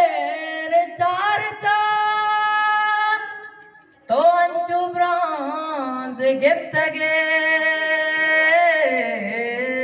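A man singing long, drawn-out notes with wavering ornaments on the held pitches; the voice breaks off briefly about four seconds in, then carries on.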